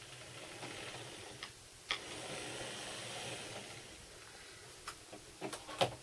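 HO-scale diesel switcher locomotive running slowly on model railroad track, its small motor and wheels making a faint whirring hiss that fades about three and a half seconds in. A few sharp clicks come through it, the loudest near the end.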